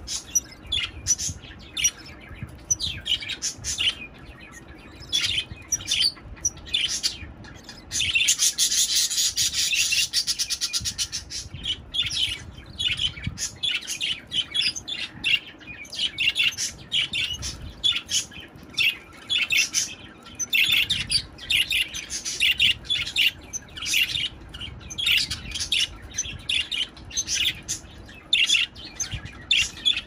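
Budgerigars chirping in short, high, rapid chirps, with a dense run of fast, even chatter about a third of the way through.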